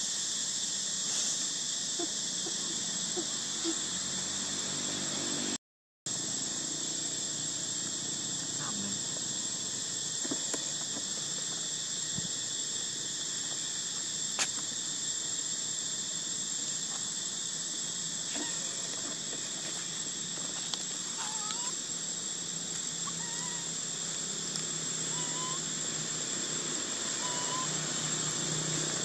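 Steady, high-pitched chorus of insects buzzing without a break, with a few faint short chirps over it. The sound cuts out completely for a moment about six seconds in.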